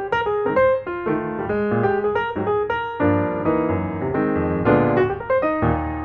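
Background piano music, a continuous run of struck notes and chords.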